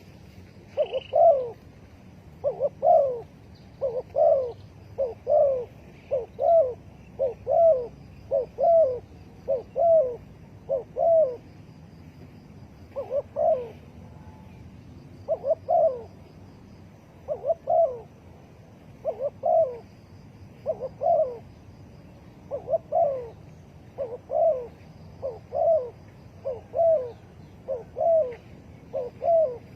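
Spotted dove cooing over and over, short pitched coo phrases coming about once a second, with two brief pauses near the middle.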